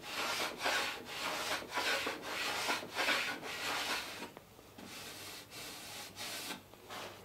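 Small low-angle hand plane shaving wood along a clinker plank's edge in short, quick strokes, about two a second, trimming the ridge where the plank bevel meets the half lap. The strokes grow fainter and fewer after about four seconds.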